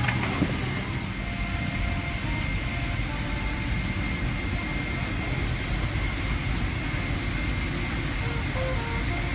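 Steady whoosh of a Boeing 777-300ER's cabin air conditioning during boarding, with a faint steady high tone above it and a murmur of passenger voices.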